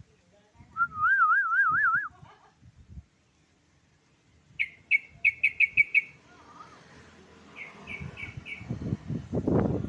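Yellow-vented bulbul (trucuk) calls: a quavering whistled note lasting about a second, then a quick run of about eight chirps and a shorter run of four, followed near the end by a louder low rumble.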